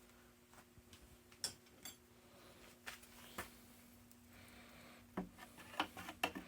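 Faint, scattered metal clicks and taps from hands working a stuck collet in a steel collet chuck, coming more thickly near the end.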